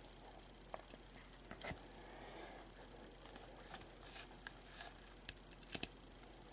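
Faint handling of a stack of glossy Prizm racing trading cards, cards slid and flipped one after another with scattered soft clicks and snaps, the loudest near the end.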